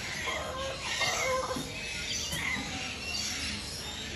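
Feather-footed chickens clucking, a few short calls in the first second and a half, then quieter, with faint bird chirps in the background.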